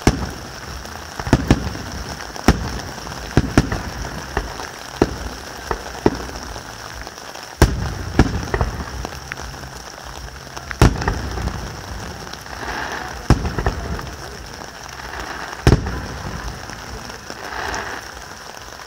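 Aerial fireworks display: shells bursting in an irregular series of sharp bangs, each trailing a low rumbling echo, over a steady hiss. The loudest bangs come about 8, 11 and 16 seconds in.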